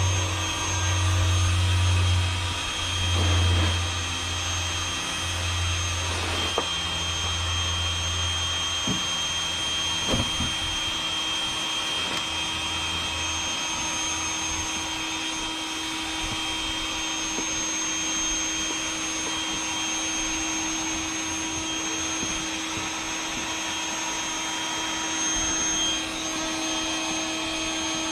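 Intex Quick-Fill electric air pump running steadily as it blows up a chamber of an inflatable boat, a constant whining motor hum. For the first nine seconds or so a low pulsing throb sits under it, with a couple of light knocks.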